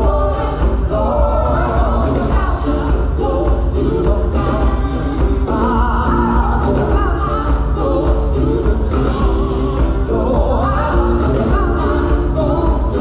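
Live choir singing with a band: sustained, many-voiced notes over heavy bass and a steady drum beat.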